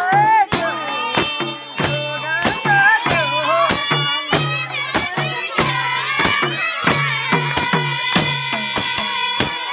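Nepali folk music in the thumke bhaka style: a regular hand-drum beat, about two to three strikes a second, under a melody line that bends in pitch and then holds long notes near the end.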